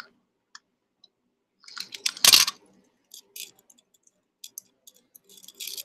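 Small clicks and clinks of costume jewelry being handled: a double-strand pearl necklace and its magnetic clasp, with one louder clatter about two seconds in.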